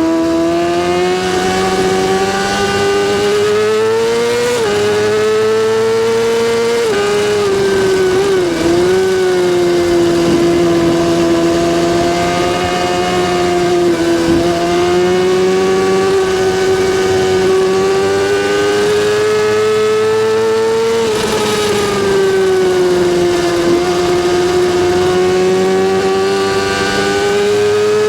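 Kawasaki ZX-6R's inline-four engine running at high revs, its pitch slowly rising and falling, with a few quick dips in pitch in the first ten seconds.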